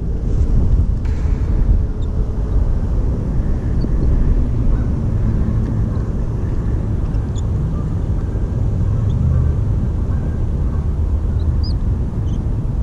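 Wind buffeting an action-camera microphone in a strong headwind: a steady, uneven low rumble.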